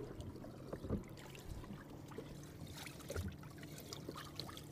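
Bass boat livewell water trickling faintly under a low steady hum, with scattered light knocks and rustles.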